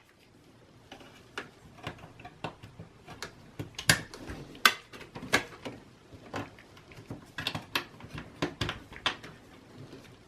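Irregular clicks, taps and knocks of hands handling parts inside an HP Z230 small-form-factor desktop case, with a few sharper knocks near the middle.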